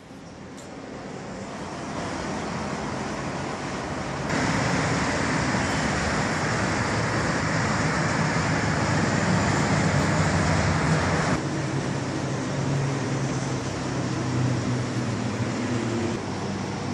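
Road traffic heard from high above, a steady rumble and hiss of passing vehicles. It gets louder and brighter suddenly about four seconds in and drops back about eleven seconds in.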